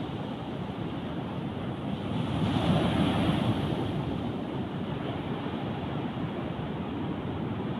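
Sea surf breaking on shore rocks, a steady rushing wash with one wave swelling louder about three seconds in. Wind on the microphone adds a low rumble.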